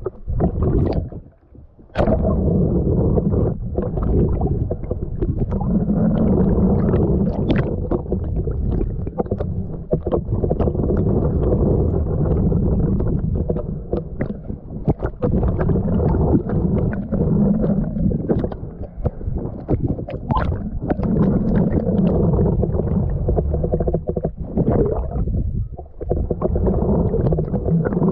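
Muffled sloshing and gurgling of water heard through a waterproof action-camera housing in the sea, with scattered sharp clicks. The noise dips out briefly about a second in and again near the end.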